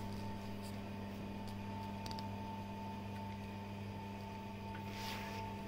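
Steady electrical hum, with a few faint light scrapes as a small stick works melted chocolate onto the surface of a chocolate egg.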